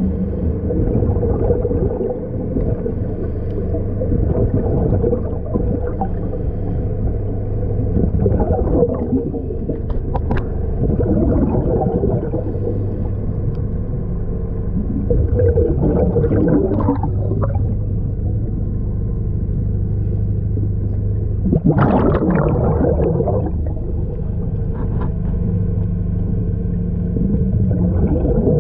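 Underwater sound picked up by a diver's camera: a steady low hum, with the diver's scuba exhalation bubbles gurgling every few seconds, the loudest burst about three quarters of the way through.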